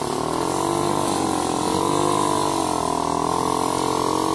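ATV (quad bike) engine running, its revs rising and falling several times.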